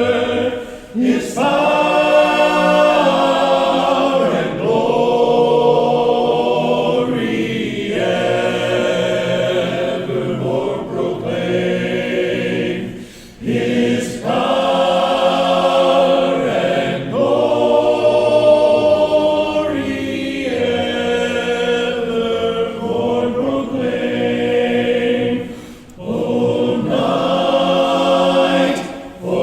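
Men's a cappella barbershop voices singing slow, sustained chords in close harmony, with no instruments. The long phrases break off briefly about a second in, about 13 seconds in and about 26 seconds in.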